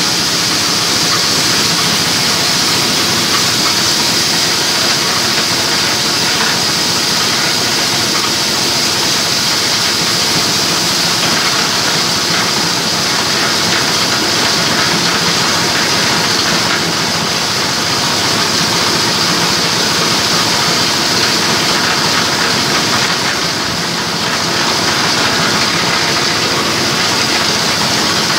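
Diesel-driven multifunction chopper mill (mesin cacah) running steadily under load, a dense hissing grinding noise as dry crop waste is fed by hand into the hopper and milled to powder.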